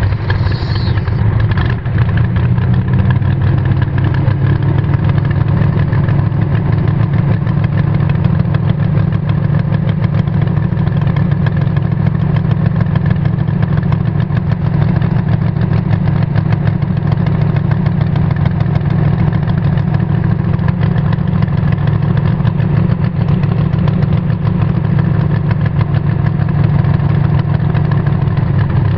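Dragster engine idling loudly and steadily, with no revving.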